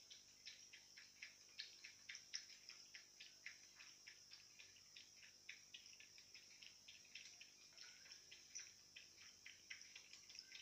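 Cat lapping water, a faint quick run of laps at about four a second.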